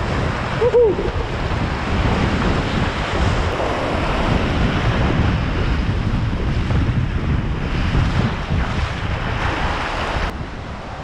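Whitewater rapids rushing and splashing around a kayak at water level, with wind buffeting the microphone. There is a brief pitched call about a second in, and the rush drops off abruptly near the end.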